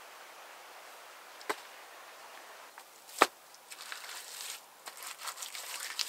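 Two sharp knocks or chops, the second much louder, then a broken run of scraping and rustling.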